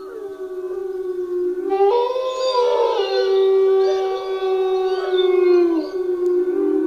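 Gray wolves howling in chorus: a low, steady howl joined about two seconds in by several higher howls that overlap and glide up and down in pitch.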